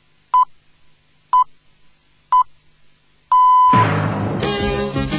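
BBC Greenwich Time Signal: short high pips once a second, then a longer final pip about three seconds in marking the exact start of the hour. Music comes in straight after the last pip.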